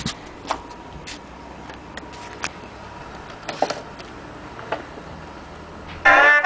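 Antique wind-up phonograph's needle running in the record's lead-in groove: a steady surface hiss with scattered irregular clicks and pops. About six seconds in, a record of brass band music starts playing through the tin horn.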